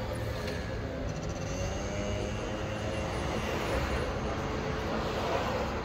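Steady vehicle noise: an even low rumble with hiss over it, no clear start or stop.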